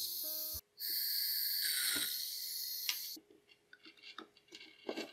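Butane gas hissing out of a handheld torch nozzle as fuel is fed into a small 3D-printed gas engine: a short burst, then a longer one of about two and a half seconds that stops suddenly. A few faint clicks of handling come near the end.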